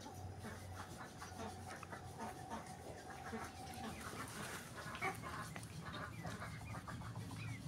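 Faint farmyard animal sounds: scattered soft calls and small noises, with no loud crow.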